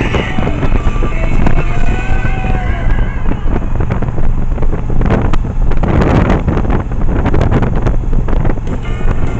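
Yamaha 1100 motorcycle on the move, its engine running under heavy wind noise buffeting the microphone.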